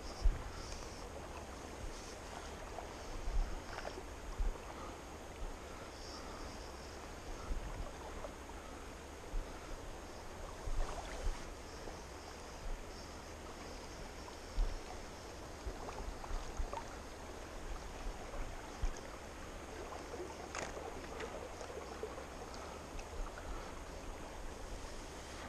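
Clear river water flowing and lapping close by, a steady rush with an irregular low rumble and scattered short bumps and knocks.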